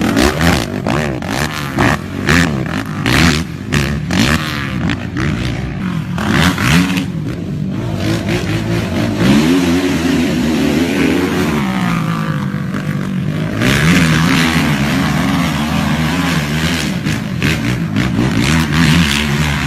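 Quad (ATV) engines revving, their pitch rising and falling again and again as the throttle is opened and closed on the track.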